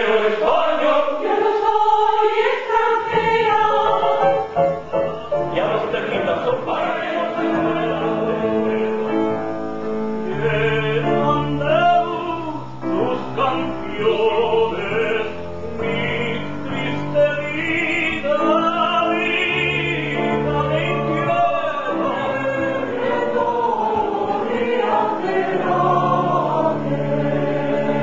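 Mixed choir of men's and women's voices singing a chorus in full harmony, with long held low notes under the upper parts.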